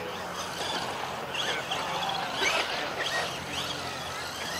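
Electric motor of a radio-controlled monster truck whining, its pitch rising and falling repeatedly as the throttle is worked.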